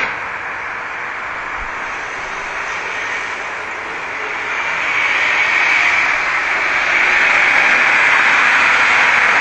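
Road traffic noise: a steady rush with no engine tone standing out, growing louder about halfway through and then holding.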